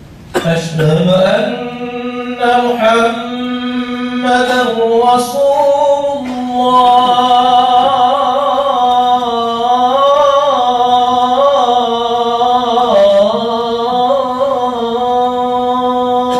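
A muezzin's solo male voice chanting the Friday adhan (Islamic call to prayer). It is one long drawn-out phrase on a mostly steady note, with winding turns of pitch. It begins just after the start.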